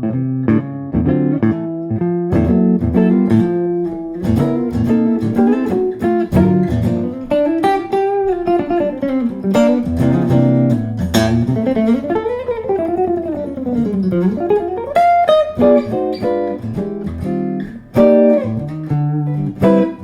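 Small-body hollow archtop electric guitar with Kent Armstrong 57 humbucker pickups, played solo in a run of plucked notes and chords. Through the middle, notes slide up and down in pitch.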